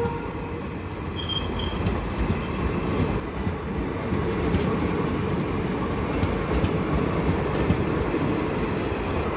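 Train running past at speed: a steady rumble of wheels and carriages on the track.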